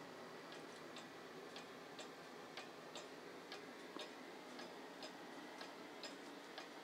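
Antique 1800s Black Forest pendulum clock ticking: the escapement gives faint, even tick-tock clicks at about two a second.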